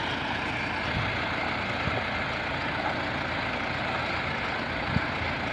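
Tractor diesel engine running steadily at low revs, with a few brief knocks, the sharpest about five seconds in.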